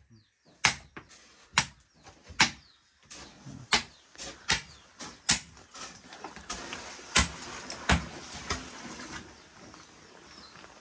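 Sharp knocks at uneven intervals, roughly one a second, from work with hard stones for a house floor's rubble base, with a stretch of scraping noise in the middle.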